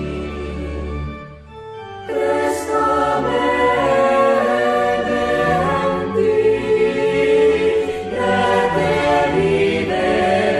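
Choir singing slow, held sacred music; it thins briefly about a second and a half in, then swells back in fuller.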